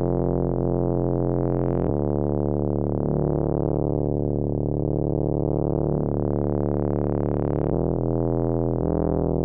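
Background music of sustained synthesizer chords, changing about two seconds in and again near the end, with the brightness slowly swelling and fading.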